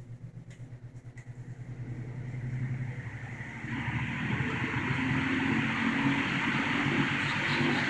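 1960 General Electric W-15 box fan starting up after being switched to exhaust: a low pulsing motor hum at first, then the rush of air builds over the first few seconds and settles into a steady whoosh.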